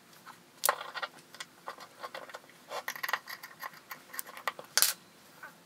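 Irregular light metal clicks and clinks of a steel backing block being set onto a mini lathe tailstock base and its socket-head cap screws turned with a hex key, with a sharper clink about a second in and another near the end.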